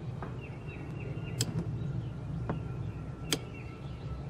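A 12-volt relay clicking sharply twice, about two seconds apart, with fainter ticks between, as a magnet moved past its reed switch switches it on and off. Repeated high chirps and a steady low hum sit in the background.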